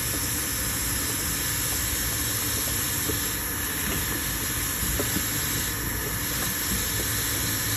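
Heat gun blowing steadily, a constant hiss with a faint high whine, as it heats a vinyl rod until it goes soft.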